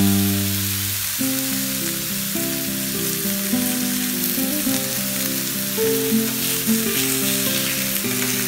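Beef ribs and onions sizzling steadily in a metal roasting tray over a charcoal fire. A background melody of held notes plays underneath, loudest right at the start.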